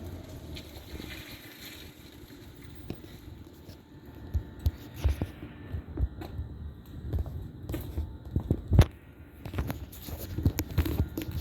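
Low steady hum of running outdoor air-conditioning units, overlaid from about four seconds in by irregular thumps and knocks, the loudest about nine seconds in.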